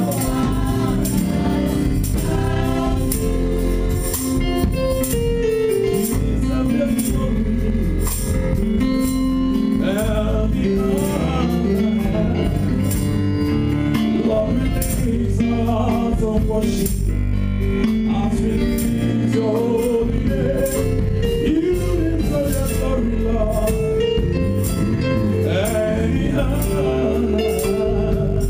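Live gospel worship music with singing: a band with drum kit and keyboard playing a steady beat under the sung melody.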